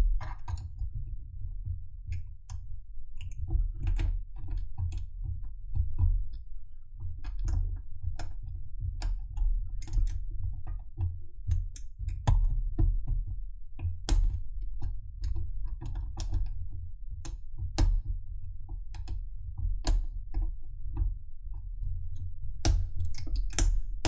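Hook pick and tension wrench single-pin picking a Maxus padlock: irregular metallic clicks and ticks as the pick works the pins, a denser run of clicks near the end. A low rumble of hands handling the lock runs underneath.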